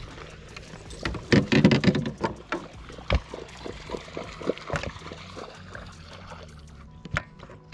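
Irregular knocks and clicks of a fishing rod and reel being handled against the boat, with a louder rattling knock about one and a half seconds in.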